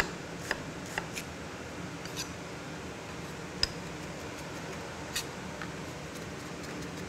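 Sparse sharp clicks of a chef's knife tapping a wooden cutting board as an onion is cut, then a spoon knocking a ceramic bowl while butter is mixed, over a steady background hum.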